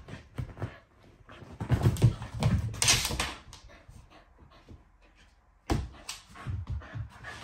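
A puppy playing rough with a rope toy on a leather sofa and getting down to the floor: soft thumps, scrabbling and the rub of paws and body on leather. There is a louder scuffle about three seconds in, a pause, then a sudden knock.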